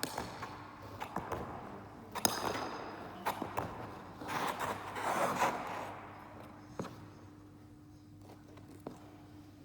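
Figure skate blades on rink ice: a few sharp clicks and scraping strokes, the longest scrape about four to five and a half seconds in, over a steady hum.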